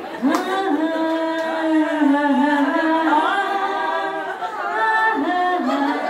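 Women singing a Bengali song together without instruments, in long held notes.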